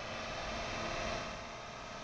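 Farm vehicle engine running steadily, a constant droning noise.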